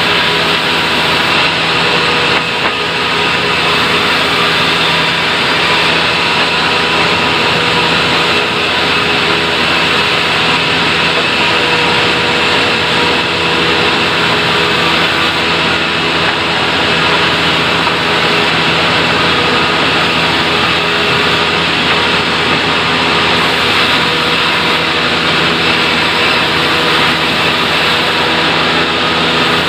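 Sawmill saw running steadily and loudly: a constant machine noise with a few steady hum tones held throughout, as acacia timber is sawn.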